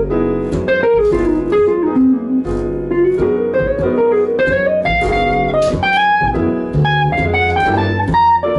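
Small jazz band playing: a single-note melody line that winds down and back up, over walking bass and drums.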